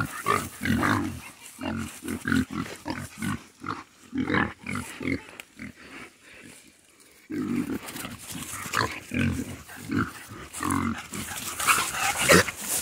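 Several young pigs grunting repeatedly, in short low grunts, as they root in the grass. The grunting drops away for a couple of seconds past the middle, then picks up again.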